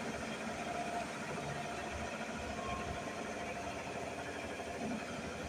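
Washing machine on its spin cycle, the drum spinning fast with a steady mechanical hum.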